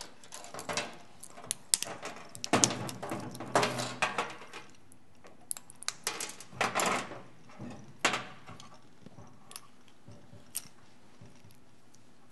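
Irregular clinks, clicks and scrapes of small metal parts being handled and fiddled with on a steel workbench, with a few denser flurries of clatter in the first half and only scattered clicks later.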